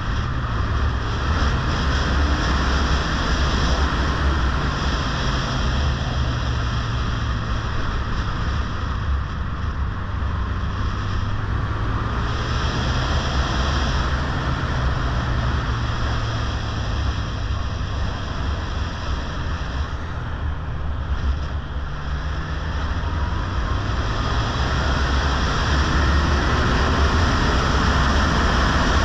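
Kawasaki Zephyr motorcycle engine running while riding, its pitch rising and falling with throttle and gear changes, under heavy wind rumble on the microphone. About two-thirds of the way through the engine note dips, then climbs and gets louder as the bike accelerates.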